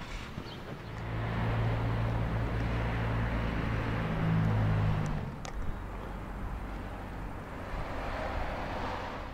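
A road vehicle going by on the street: a steady engine hum over tyre noise, loudest from about one to five seconds in, with the engine note rising just before it fades. The road noise swells again near the end.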